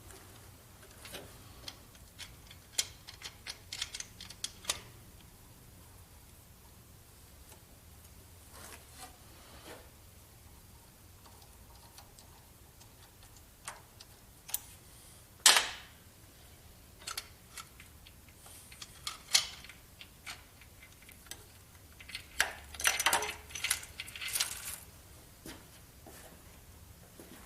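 Intermittent clinks, clicks and rattles of metal tools and engine parts being handled, with one sharp knock about halfway through and a quick flurry of rattling near the end.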